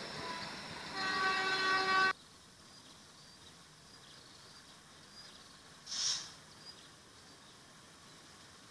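Train horn sounding one steady held note for about a second before cutting off sharply, from a train approaching out of sight. After it, quiet outdoor air with one brief high-pitched chirp about six seconds in.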